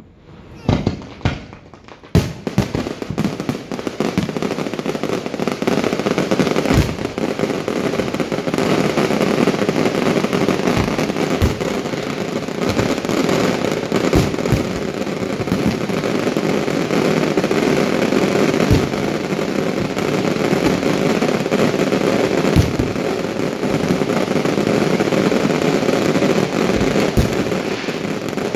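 New Year fireworks display: a few separate bangs, then from about two seconds in a continuous barrage of bursts and crackling with sharp booms throughout.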